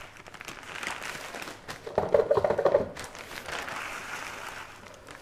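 Dry rolled oats being scooped and poured into a plastic measuring jug, a light rustle with small scattered clicks. About two seconds in there is a short, louder, muffled tone lasting under a second.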